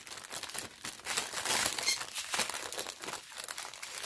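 Plastic packaging crinkling and rustling in irregular bursts as it is handled, fullest from about one to two seconds in.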